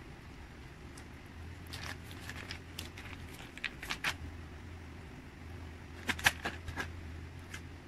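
Crinkling of a foil cream cheese wrapper and a metal spoon scraping and clicking against a glass bowl as cream cheese is scooped out, in two spells of crackling with one sharper click about six seconds in.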